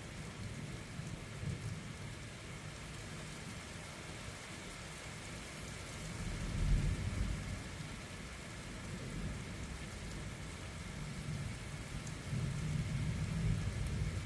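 Steady rain falling in a thunderstorm, with low rumbles of thunder swelling about six seconds in and again near the end.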